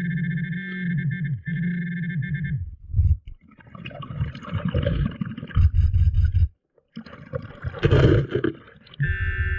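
Underwater metal detector sounding a steady electronic buzzing tone twice over a metal target (a screw), then stopping. In between, gravel and stones scrape and knock under a gloved hand, with a louder rush of water about eight seconds in, and the tone returns near the end.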